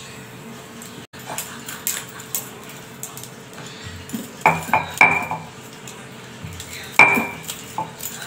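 A wooden rolling pin working dough on a stone chakla (rolling board) that rocks and clacks against the counter: soft rolling with sharp knocks that ring briefly, a quick cluster about halfway through and a loud one near the end. The clatter comes from the board not sitting firm, which a cloth underneath is meant to cure.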